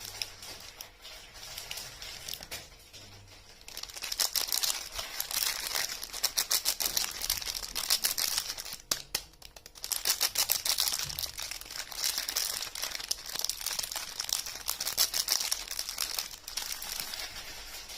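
Soap packaging being handled and unwrapped, the wrapper crinkling and tearing. Quiet handling gives way to dense, rapid crinkling about four seconds in, with a brief pause about halfway through before the crinkling resumes.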